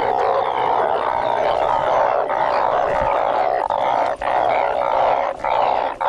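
Dense, loud chorus of many frogs calling together, the breeding chorus that follows heavy rain.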